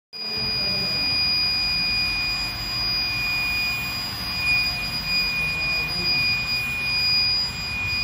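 Agni Electrical induction melting furnace running while it melts a gunmetal charge: a steady high-pitched whine with a fainter tone an octave above it, over a constant low rumble.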